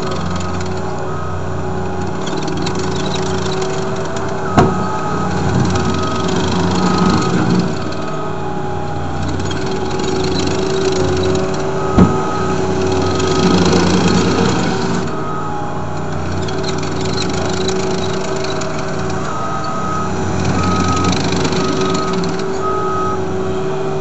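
Caterpillar 247B compact track loader's diesel engine running under load as the machine drives and works its bucket, rising in a couple of swells. A backup alarm beeps about twice a second in several stretches, and there are two sharp clanks several seconds apart.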